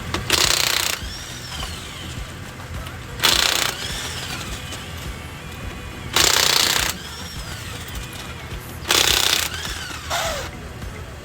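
Impact wrench hammering on the wheel's lug nuts in five short bursts, each trailing off in a whine that rises and falls away.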